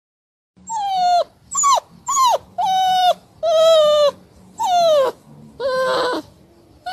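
Pug whining in a string of about eight short, high cries, each sliding down in pitch.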